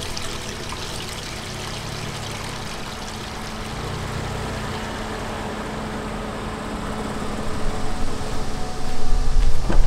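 Steady rushing of running water, with a faint low hum underneath; it grows louder and more uneven in the last two seconds.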